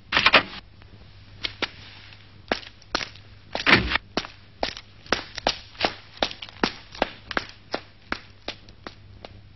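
Footsteps dubbed onto a film soundtrack, about three steps a second and quickening a little. A sharp clatter at the start and a heavier thud about four seconds in break the run.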